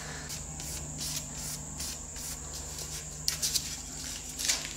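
Linen polishing pad charged with shellac and pumice rubbing briskly over a teak board, a quick regular swishing with a few louder strokes near the end. The pumice is being ground into the wood's open pores to fill the grain.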